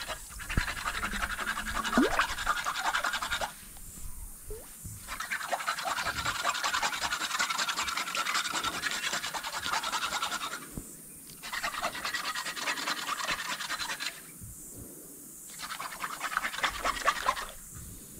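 Crackling, fizzing river water noise in four stretches of a few seconds, with short quieter gaps between.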